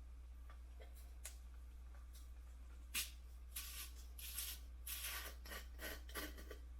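A sharp click about three seconds in, followed by several seconds of soft rustling and handling noises over a steady low hum.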